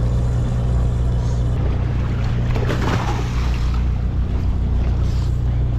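Fishing boat's engine running with a steady low hum, and water splashing against the hull about three seconds in.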